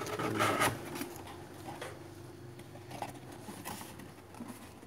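Cardboard rubbing and scraping as the lid of a cardboard mailer box is lifted open by hand. The sound is loudest in the first second and is followed by quieter scuffs and small ticks.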